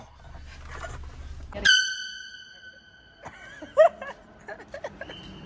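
A handheld canned air horn blasts once, starting about a second and a half in: a loud, high, steady blare lasting about a second and a half. It is followed by a few short yelps of voices.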